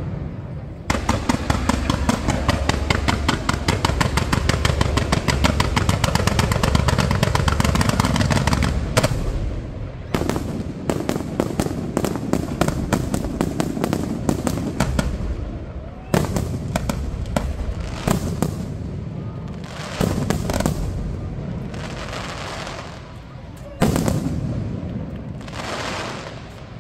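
Aerial fireworks display: a dense rapid barrage of bangs and crackles from about a second in until about nine seconds, then single shell bursts a few seconds apart, each echoing and followed by crackling.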